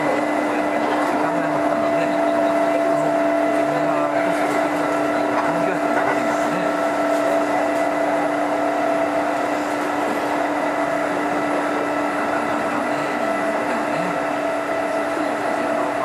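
Kintetsu 2430 series electric train heard from inside the car: a steady machine whine and hum that holds one pitch throughout, over a low rumble.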